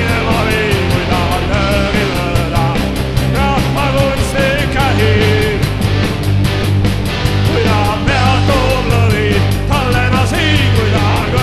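Rock band playing: electric guitars and drums with a fast, steady beat and a melody line bending in pitch over it.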